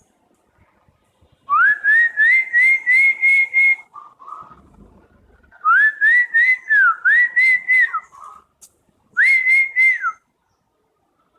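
Koel-style call: three runs of loud, clear whistled notes, each note sliding upward. In the first run the notes climb higher one after another. Fainter answering notes come between the runs.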